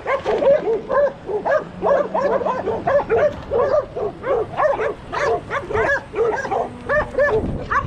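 Several hound dogs barking and baying together in quick, overlapping yelps.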